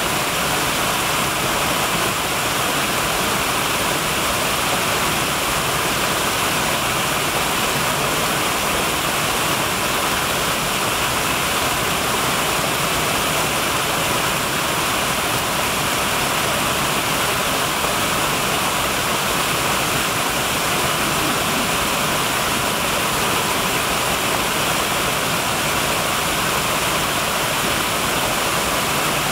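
Small woodland waterfall: two cascades of a brook splashing over mossy rocks into a shallow pool, a steady, even rush of falling water.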